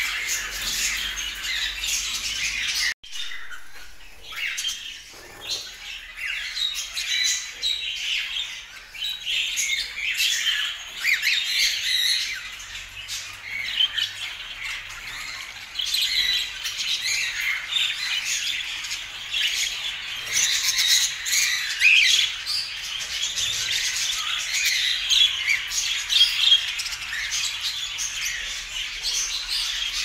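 A group of caged cockatiels chirping and squawking, a continuous chatter of many short overlapping calls. The sound cuts out abruptly for a moment about three seconds in, then the chatter resumes.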